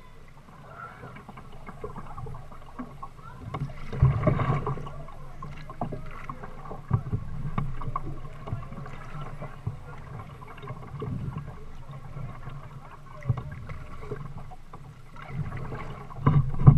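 Water splashing and lapping against a plastic kayak's hull as it is paddled, with a few sharp knocks, the loudest about four seconds in and another near the end.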